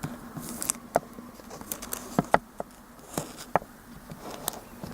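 Plastic action figure being handled and posed: a dozen or so small, irregular clicks and taps of hard plastic parts, over a faint steady hum.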